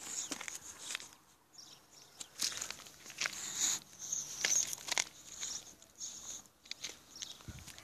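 A boxer dog sniffing and snuffling right up against the microphone, in short irregular hissing breaths, mixed with rustling and handling knocks.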